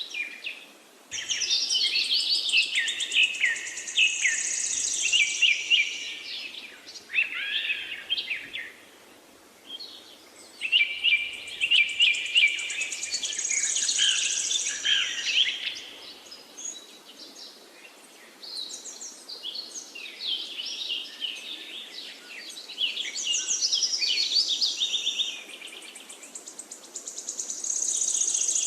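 Songbird singing in long, rapid phrases of chirps and trills, each lasting several seconds, with short pauses between them and a new phrase starting near the end, over a faint steady background hiss.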